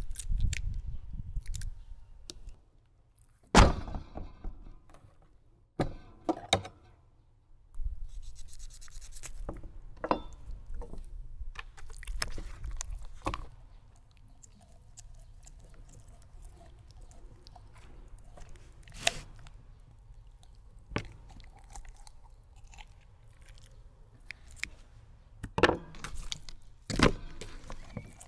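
Kitchen shears crunching through a raw chicken's bones, with knocks and scrapes of the bird being handled on a wooden cutting board. The crunches and thuds come one at a time, every few seconds, the sharpest about three and a half seconds in.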